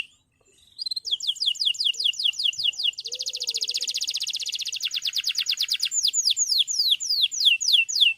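Male domestic canary singing: after a short pause, a run of quick downward-sweeping notes, then a very rapid rolling trill, then slower, wider downward sweeps to the end of the phrase.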